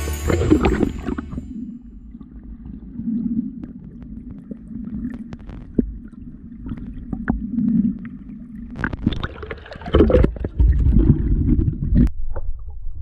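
Stream water gurgling, with scattered clicks and knocks. It gets louder about nine seconds in and cuts off abruptly near the end.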